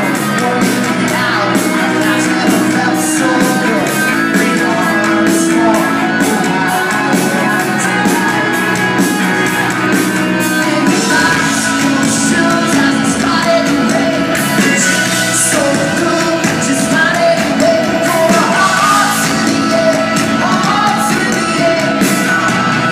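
A pop-rock band playing live with drums, guitars and a lead vocal singing over a steady beat.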